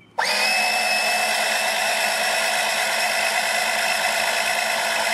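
Small 12-volt electric oil transfer pump switching on abruptly and running with a steady whine as it pumps transmission oil through a hose.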